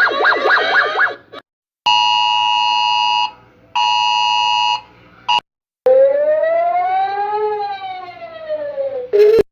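A string of electronic emergency-alert alarm sounds. A fast warbling siren stops about a second in, then come two long, steady two-tone beeps with a short gap between them. Last comes a single siren wail that rises slowly and falls again.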